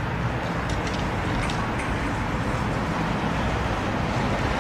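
Steady low rumble of motor vehicles running.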